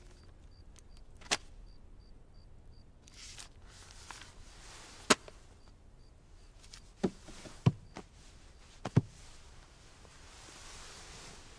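Small objects handled on a table: a handful of short, sharp clicks and knocks, one about a second in, one midway and four close together later, with soft rustling between them.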